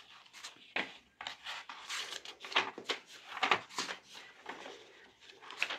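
Pages of a thick physics textbook being turned by hand: a string of short, irregular paper rustles and flicks.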